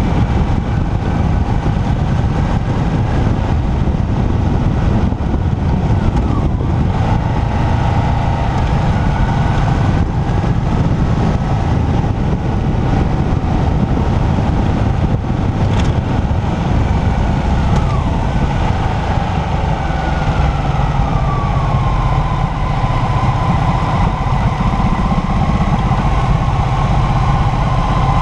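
Motorcycle riding at road speed, with heavy wind rumble on the microphone over the engine's note. The engine whine glides down in pitch a couple of times and settles lower about twenty seconds in as the bike slows.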